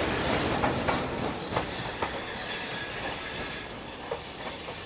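Train wheels running on the rails: a steady rumble and hiss with a few sharp clacks over rail joints, and a faint high wheel squeal near the end.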